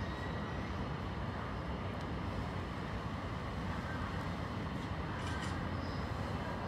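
Steady low rumble of distant city and railway traffic, with no single sound standing out.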